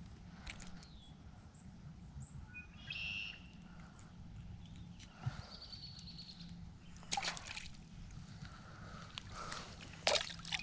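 Outdoor lakeside ambience: birds chirp now and then, with two short splashy bursts of water, one about seven seconds in and a louder one near the end.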